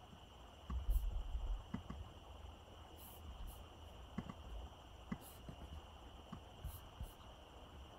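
Faint background noise with a steady high-pitched whine. Scattered soft clicks and low rumbling bumps come through it, the strongest about a second in.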